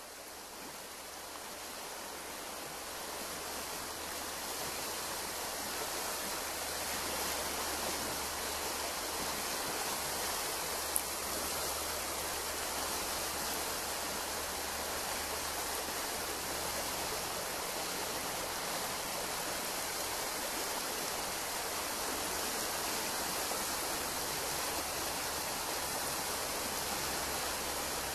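Shallow forest stream flowing steadily over a stony bed, fading in over the first few seconds. A single brief click sounds about eleven seconds in.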